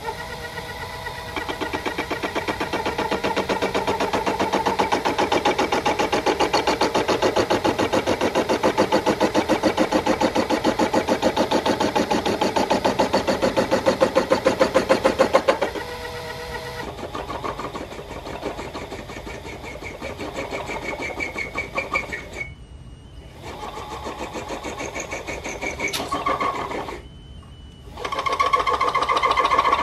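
Small DIY lathe's spindle motor running while a carbide insert turns a 15 mm aluminium bar, a steady whirring with a fast pulsing chatter. The cut falters at about 16 seconds, then the sound drops out twice, briefly near 22 seconds and for about a second near 27 seconds. The maker judges this machine too weak in power to cut 15 mm aluminium well.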